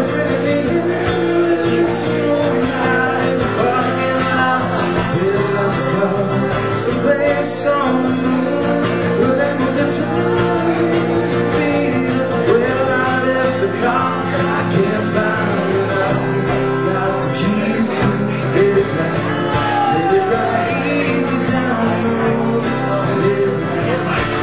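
A man singing a song to guitar accompaniment, the chords sounding steadily under his voice.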